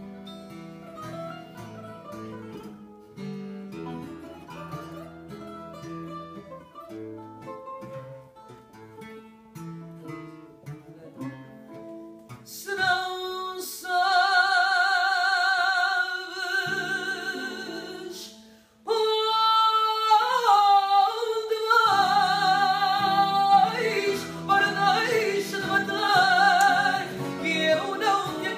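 Live fado: two acoustic guitars play a plucked instrumental passage, then a little under halfway through a male voice comes in over them, singing long, wavering held notes. He stops briefly for breath about two-thirds of the way through, then sings on.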